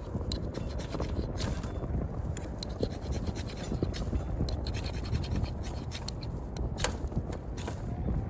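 Strong wind buffeting the microphone as a steady low rumble, with scattered sharp clicks and scratches throughout.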